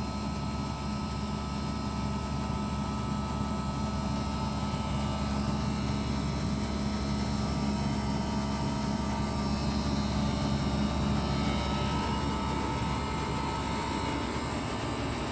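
Cold-storage refrigeration unit with a single-phase 2 hp compressor running: a steady mechanical hum with several steady tones over it.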